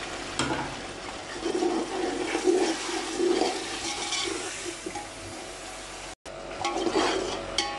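Onion, tomato and spice masala sizzling and bubbling in oil and a little water in a large metal pot, stirred with a slotted spatula that scrapes and clicks against the pot. The sound cuts out for a moment about six seconds in.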